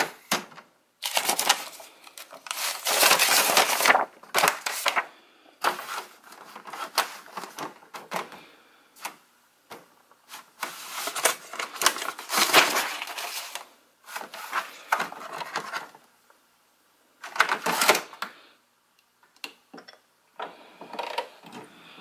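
The plastic paper tray of an HP Officejet inkjet printer being pulled out and pushed back in, with sheets of paper rustling as the empty printer is reloaded. The clatter and clicks come in bursts with short pauses. Near the end a quieter, steadier sound follows as the printer starts to print.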